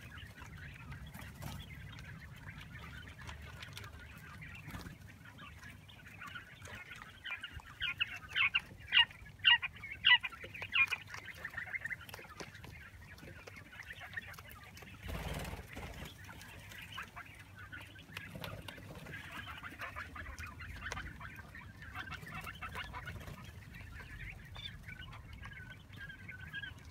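Flock of month-old quail chicks peeping and chirping, with a cluster of louder, sharper calls about a third of the way in.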